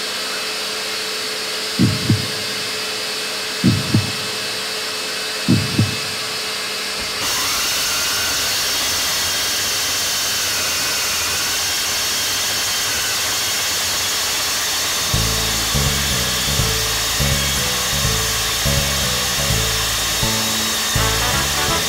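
RT-160 core drill boring through clinker brick, running steadily together with its dust-extraction vacuum; the noise grows louder and brighter about seven seconds in. Three pairs of low thumps come about two seconds apart in the first six seconds, and music with a steady beat comes in halfway through.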